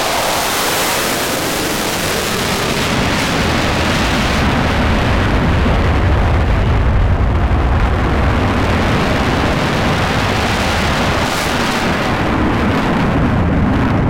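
Saab JAS-39C Gripen fighter's single Volvo RM12 turbofan, loud continuous jet noise as the jet manoeuvres overhead. A deep rumble grows stronger about a third of the way in and swells again near the end.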